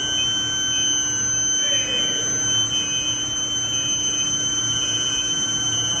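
Induction heating furnace whining steadily at a high pitch while heating a steel bar, several held tones at once, over a steady machinery noise.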